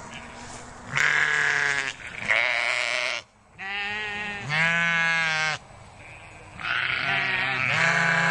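Sheep or goats bleating: a series of long, wavering bleats one after another, with short pauses between them.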